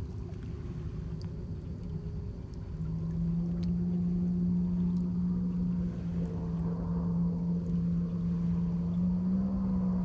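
A distant engine's steady low drone over the lake, louder from about three seconds in and rising slightly in pitch near the end, with faint lapping of small waves on the shore rocks.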